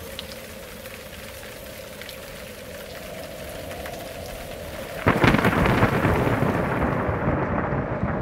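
Sea surf washing in steadily. About five seconds in it turns suddenly much louder, a sustained rush as waves break and spray against the rocks of a jetty.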